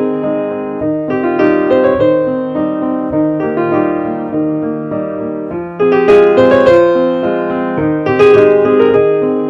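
Background music: piano or electric piano playing a steady run of notes.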